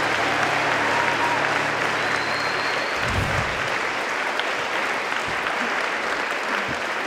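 Audience applauding with dense, steady clapping, over a low steady hum that stops about three seconds in.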